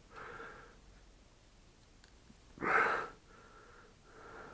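A person breathing close to the microphone, soft breaths about once a second, with one much louder, sharper breath a little under three seconds in.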